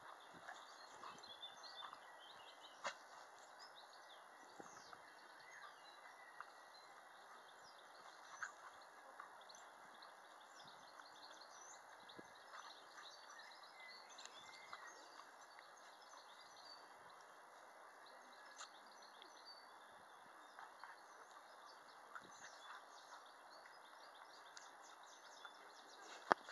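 Near silence: faint outdoor ambience, a steady hiss with scattered faint bird chirps and a few soft clicks, and one sharper click near the end.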